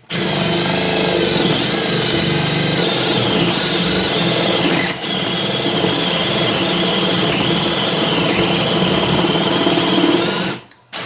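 Makita 18V LXT brushless drill driver boring into wood with a spade bit on speed 2: the motor whines steadily under load, its pitch wavering as the bit bites, with a brief let-up about halfway before it keeps going and stops shortly before the end.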